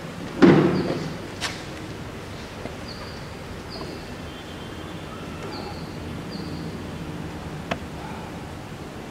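Steady outdoor background noise with one dull thump about half a second in, a few sharp clicks, and faint short high chirps repeating every second or so.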